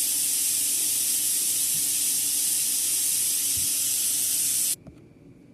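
High-pressure air hissing steadily out of a Uragun PCP air rifle's air system while its regulator is being adjusted, then cutting off suddenly near the end.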